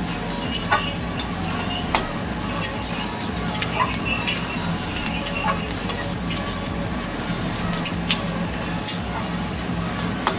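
A spatula stirring chopped onion, garlic, green chilli and capsicum frying in oil in a kadai: irregular clinks and scrapes against the pan over a light sizzle.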